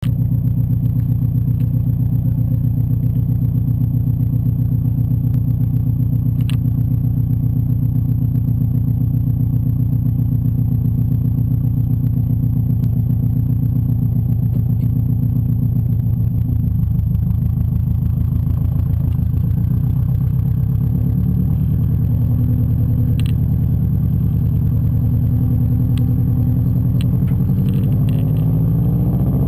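2005 Subaru WRX's turbocharged flat-four running through a 3-inch cat-less downpipe and cat-back exhaust, heard right at the tailpipe: a steady idle, then from about halfway the note changes and begins to rise as the car pulls away.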